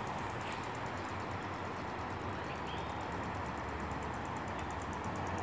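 Steady outdoor background noise with a couple of faint short chirps; the peacock is not calling.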